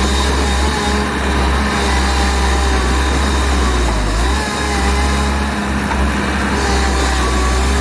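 2016 Bobcat Toolcat 5600's diesel engine running steadily, with a wavering whine over it that dips in pitch and climbs back about halfway through.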